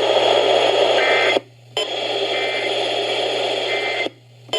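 Weather radio receiver putting out steady static hiss from a weak, noisy broadcast signal, with a low hum underneath. The signal drops out twice for a fraction of a second, and a few faint short tones show through the hiss.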